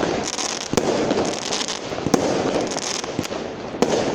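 Fireworks going off: sharp bangs about once or twice a second over continuous crackling and fizzing.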